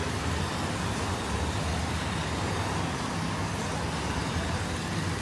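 Steady road traffic noise, an even hum of passing vehicles with no distinct events.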